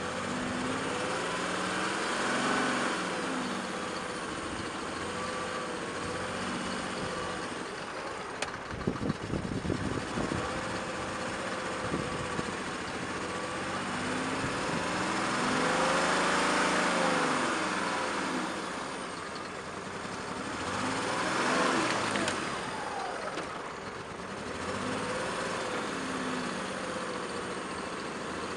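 Off-road vehicle's engine running and revving up and down several times as it drives over rough ground, with a few knocks and clatters about a third of the way in.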